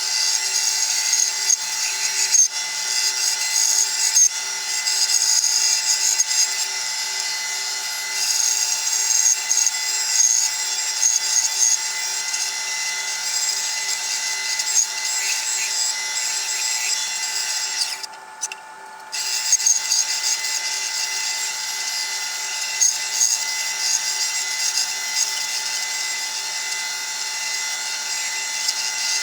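Bandsaw running steadily and cutting wood, the blade's hum carrying a continuous high hiss. It breaks off briefly about two-thirds of the way through, then resumes.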